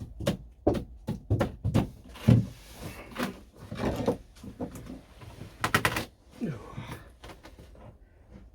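Irregular knocks, thuds and scraping of hand renovation work in a small, boxy cabin, with the loudest thud a little over two seconds in.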